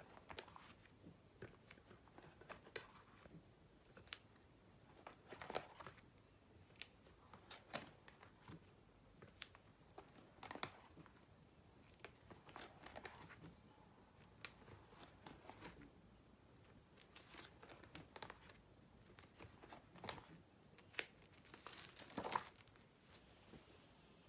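Faint crinkling and rustling of plastic photocard sleeve pages in a ring binder as the pages are turned, with sharper crackles every few seconds.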